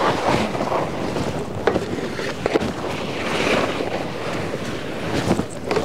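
Wind rushing over the microphone and skis scraping and hissing across snow at speed, with a few sharper scrapes along the way.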